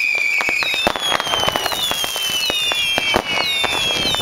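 Fireworks going off all around: a dense string of sharp cracks and bangs, with several high whistles overlapping, each falling slowly in pitch.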